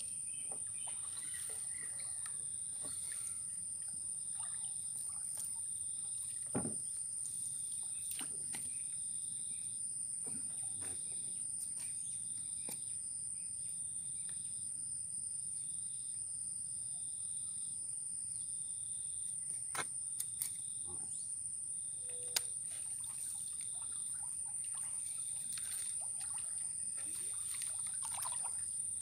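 Insects keep up a steady, high-pitched drone, with another insect chirping about once a second. A few short knocks and rustles come from the nylon gillnet being handled and the paddle in the wooden canoe.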